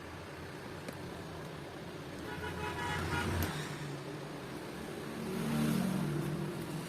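Road traffic going by, with motor vehicles passing in two louder swells, about three seconds in and again around six seconds in.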